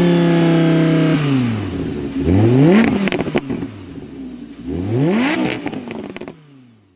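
Sports car engine held at high revs, dropping back about a second in, then revved up twice, its pitch rising and falling each time, before fading out near the end.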